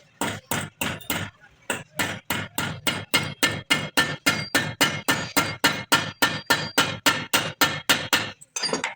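Hammer striking metal in a fast, even series of ringing blows, about four a second, stopping shortly before the end.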